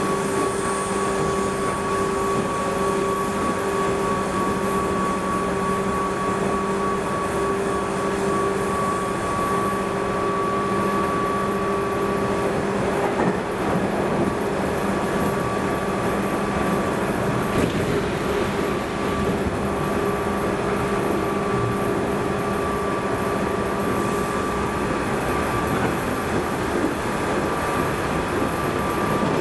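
Interior of a 213 series electric motor car running at a steady speed: a steady hum from the traction motors and gearing, holding one pitch, over the continuous rumble of wheels on rail, with a brief clatter about halfway through.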